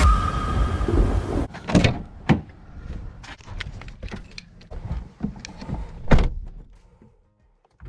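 Electronic music ends about a second and a half in, followed by a series of separate clunks and clicks from a car, the loudest about six seconds in.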